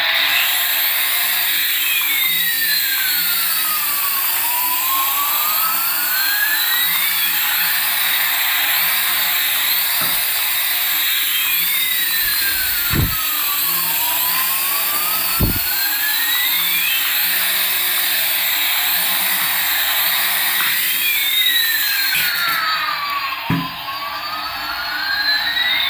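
Electronic jet-engine sound effect from a battery-powered toy airliner: a steady high whine and hiss, with a swooping pitch glide that dips and rises again about every eight seconds. A few short knocks fall in the middle and near the end.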